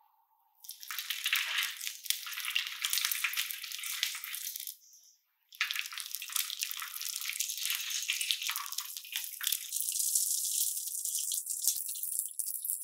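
Red-hot steel knife blade, forged from an old file, being oil-quenched to harden it: the oil sizzles and crackles as it flares up around the blade. The sound starts under a second in and cuts out briefly about five seconds in.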